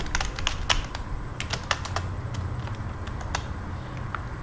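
Computer keyboard being typed on, an irregular run of key clicks that is busiest in the first two seconds and thins out towards the end, over a steady low hum.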